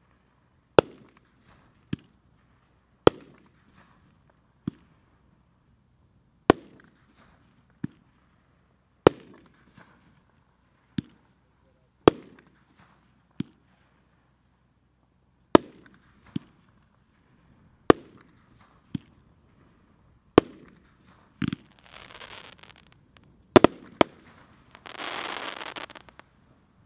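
Black Cat Wide Load firework firing single shots every two to three seconds. Each loud launch thump is followed about a second later by a quieter report as the shot bursts overhead. Near the end the bursts give way to two stretches of dense crackling.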